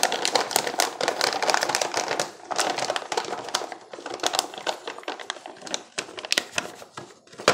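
Packaging crinkling and crackling as it is handled, a dense run of small clicks with a brief pause about two seconds in, ending in one sharp click.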